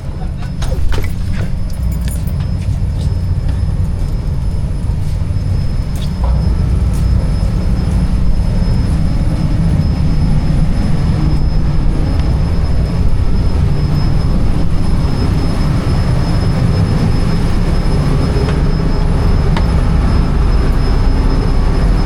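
Steady low rumble of a large passenger ferry's engines and machinery, with a few sharp metallic clanks in the first couple of seconds.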